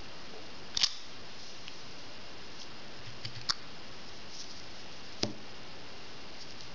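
Three short, sharp clicks of fingers tapping and pressing the touchscreens and buttons of an iPhone 4S and a Motorola Razr i lying on a table, about one, three and a half and five seconds in, over a steady low hiss.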